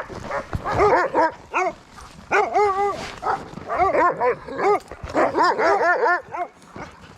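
Sled dogs barking and yipping in quick bouts of several short high calls, a pause between each bout.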